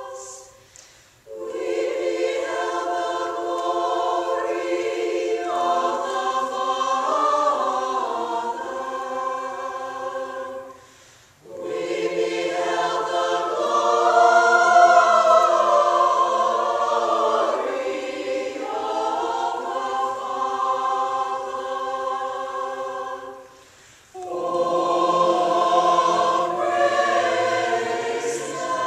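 Community choir singing a Christmas selection in sustained chords, in long phrases broken by short pauses for breath.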